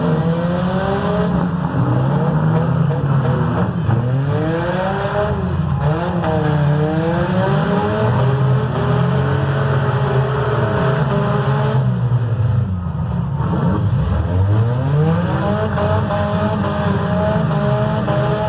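Engines of several demolition derby cars revving up and down over one another, their pitches rising and falling as the cars maneuver.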